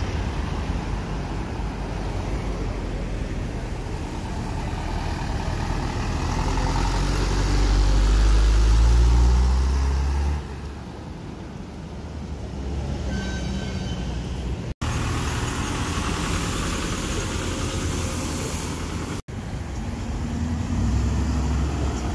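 Road traffic with a heavy truck's engine passing close: its low rumble builds to its loudest and then drops away suddenly. About two-thirds of the way through, a short high beep sounds. Near the end, a pickup truck's engine rumbles past.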